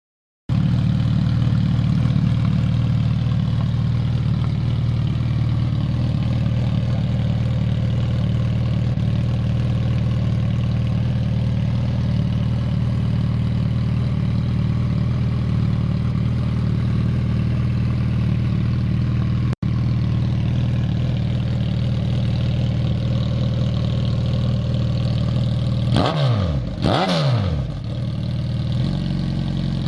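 Suzuki Hayabusa's inline-four engine idling steadily through an aftermarket sport exhaust tip, then blipped up and back down several times near the end.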